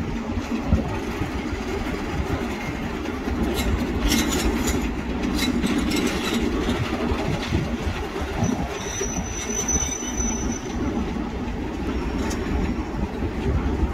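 Class 33 diesel locomotive's Sulzer eight-cylinder engine running as it hauls freight wagons slowly round a curve, a steady low rumble. A run of sharp clicks from the wheels a few seconds in, and a brief high wheel squeal about halfway through.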